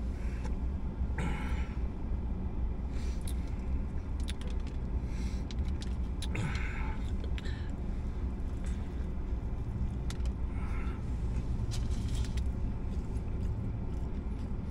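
Steady low rumble of a car idling, heard from inside the cabin, with scattered small clicks and rustles as a fried-chicken burger is handled and bitten into about halfway through.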